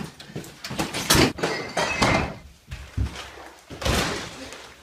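A front door banging open, then a series of heavy thumps and bangs about once a second, the loudest about a second in, as a person barges in and flings himself onto a leather couch.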